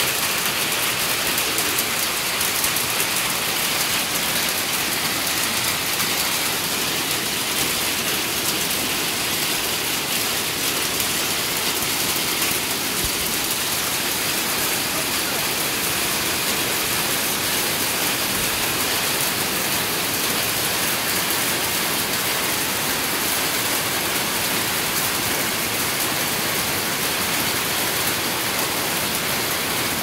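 Hail and heavy rain falling steadily on sheet-metal roofs and foliage: a dense, even patter of many small hard ticks over the hiss of the downpour.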